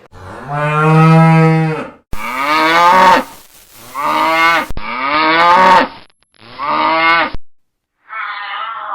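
Cows mooing: four separate drawn-out moos one after another, the first the longest and lowest.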